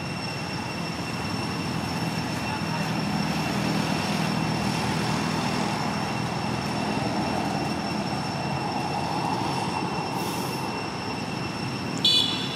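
Steady outdoor background noise with two thin high whining tones held throughout. A low hum swells in the middle and fades again. A short, sharp high squeak comes near the end.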